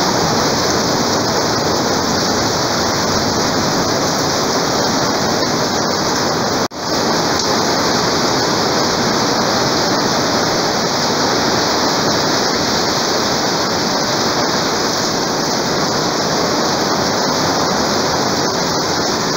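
Torrential rain pouring down steadily, a dense, even hiss. It cuts out for an instant about seven seconds in, then carries on.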